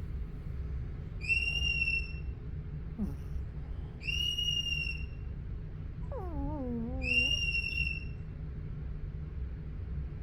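Sleeping dog snoring with a high, thin whistle on the breath, three times about three seconds apart. About six seconds in comes a short whimper that falls in pitch, a dream vocalization.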